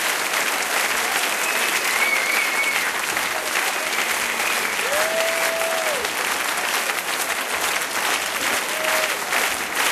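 Large concert audience applauding steadily, with a few whistles rising above the clapping.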